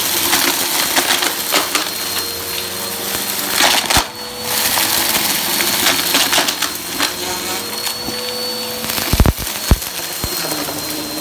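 Bissell upright bagless vacuum running over carpet with a steady motor whine, sucking up dirt, fluff, pennies and small hard bits that crackle and rattle through it. A few sharp knocks come a little after nine seconds in.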